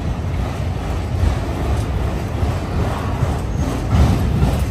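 Union Pacific freight train of autorack cars rolling past: a steady low rumble of steel wheels on rail with some rattling and clatter from the cars.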